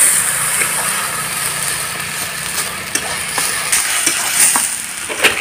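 Mashed potato and pointed gourd mixture frying in a hot metal kadai, with a steady sizzle and a spatula scraping and knocking against the pan as it is stirred, the strokes coming more often in the second half.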